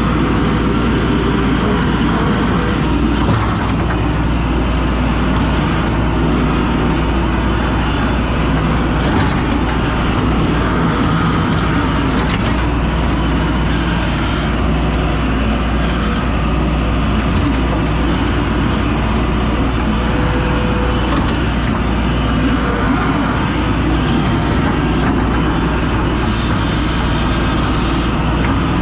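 Skid steer engine running steadily under load, a continuous loud machine drone with no breaks.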